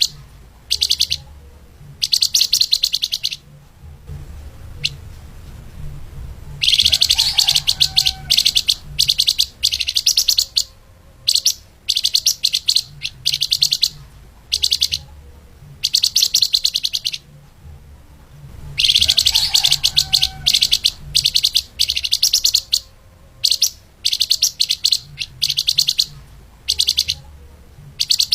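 Flamboyan (lemahan) songbird singing fast, dense trills of rapidly repeated high notes. The song comes in bursts of a second or two with short breaks, and pauses for a few seconds twice.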